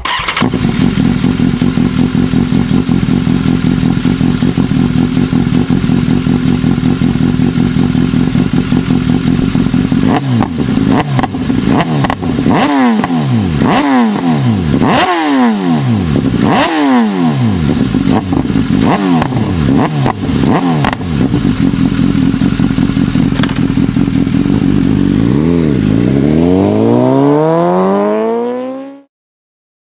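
BMW S 1000 R inline-four engine through a Hindle Evolution full exhaust system, idling steadily, then revved in a series of quick throttle blips that rise and fall. Near the end it is held in one longer rev that climbs and then cuts off suddenly.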